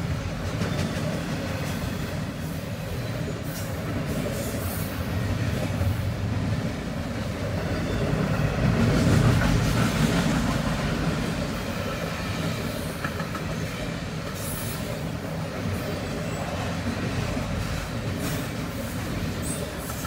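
Double-stack intermodal freight train cars rolling past close by: a steady rumble of steel wheels on the rails, growing loudest about halfway through, with a few brief high-pitched wheel sounds.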